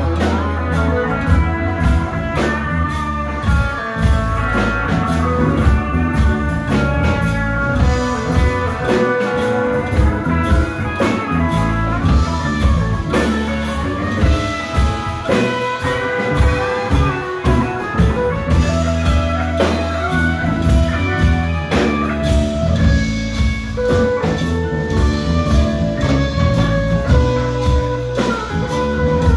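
Live rock band playing an instrumental passage with no singing: electric guitars with held melody notes over bass guitar, keyboards and a steady drum kit beat.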